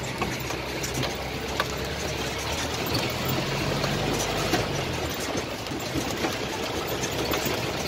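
Engine of an open-sided safari vehicle running steadily, heard from on board, with a few light knocks and rattles.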